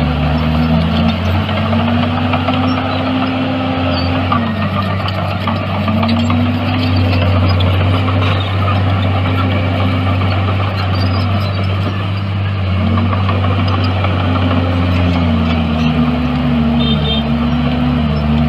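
Heavy diesel engine of earthmoving machinery running steadily, its pitch dipping and rising back several times and wavering faster near the end.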